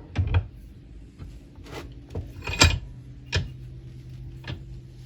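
Metal parts knocking and clanking as a pin is set into a bench vise and clamped: about six separate sharp knocks, the loudest a little past halfway, over a faint steady hum.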